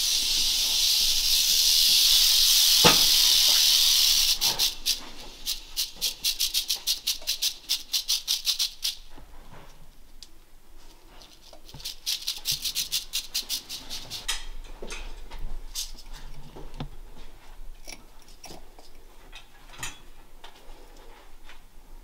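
Rattlesnake rattling its tail as it is handled. A continuous high buzz runs for the first few seconds, then breaks up into fast separate clicks that fade, start again for a couple of seconds, and trail off into a few scattered clicks.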